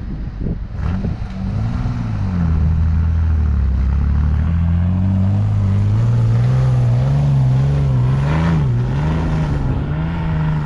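Pickup truck engine pulling through snow and slush as the truck drives past and away. The engine note dips early, then climbs steadily and wavers up and down near the end as the throttle changes.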